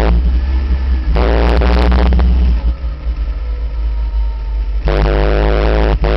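Open-cockpit race car's engine heard onboard under heavy wind buffeting on the microphone. The engine note drops away as the driver lifts off at the start, comes back briefly, fades again for a couple of seconds of coasting, then returns strongly on the power, with a brief cut from a gear change shortly before the end.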